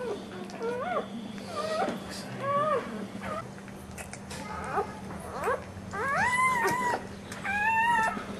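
Newborn American Staffordshire Terrier (pit bull) puppies squeaking and crying as they nurse: a string of short, high, rising-and-falling cries, with two longer cries near the end.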